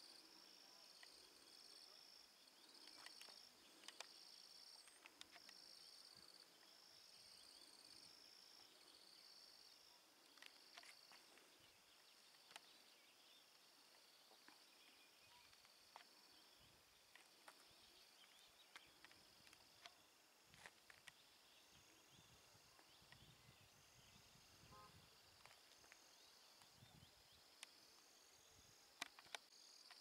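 Faint insect chorus in woodland: high-pitched chirping that pulses roughly once a second, with scattered faint clicks.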